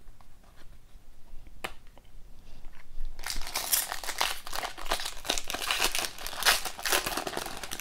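Foil trading-card pack wrapper crinkling as it is handled and torn open, starting about three seconds in and continuing to the end.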